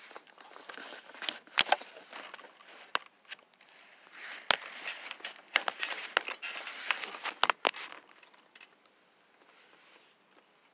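Handling noise on a phone's microphone: rustling and scattered sharp knocks as the phone rubs and bumps against fabric and a curtain, dying down near the end.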